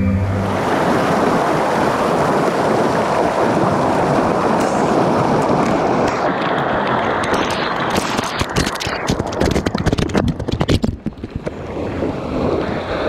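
Fast mountain stream of white water rushing and splashing over rocks, a dense steady rush. From about eight seconds in it turns uneven, with many sharp crackles and a brief drop in level about eleven seconds in.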